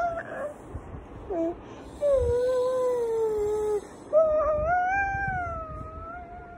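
A small child's voice making long, drawn-out wordless tones with no words: one held note that slowly falls about two seconds in, then a longer one starting about four seconds in that rises and then sags.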